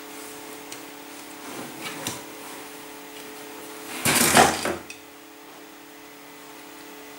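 A cardboard box shoved askew by a cat, scraping and rustling loudly for under a second about four seconds in, after a few light taps and scuffs. A low steady hum runs underneath.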